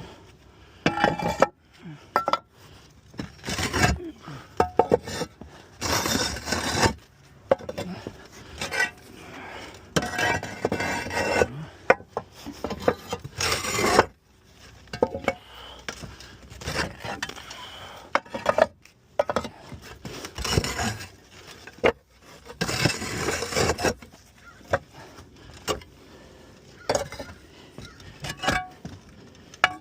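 Roof tiles being lifted, shifted and set down by hand, knocking and scraping against each other and the roof in irregular bursts, as a valley is stripped to expose the valley metal.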